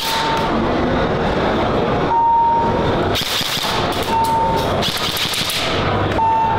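Airsoft electric guns firing rapid full-auto bursts, a dense mechanical clatter, loudest in two bursts a little after three and five seconds in.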